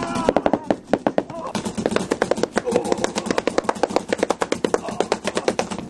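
Paintball marker fired in rapid succession, a fast string of sharp pops several times a second, with voices shouting under it.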